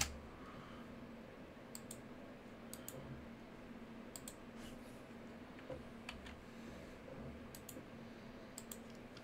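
Computer mouse button clicks, a handful spaced a second or so apart, many heard as a quick press-and-release pair, over a faint steady hum.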